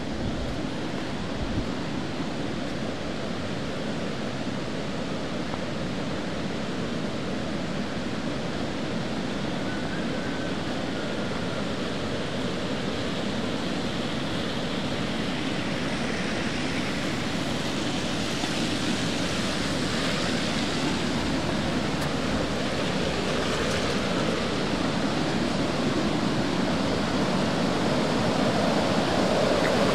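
Steady rush of a creek in flood, growing gradually louder toward the end.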